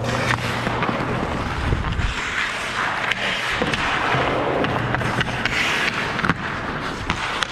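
Ice-hockey skate blades scraping and carving on the ice, with several sharp clacks of sticks and puck scattered through.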